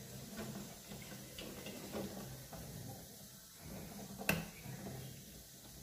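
Light clicks and taps of small plastic parts being handled as a new starting relay is fitted onto a fridge compressor's terminal pins, with one sharper click about four seconds in.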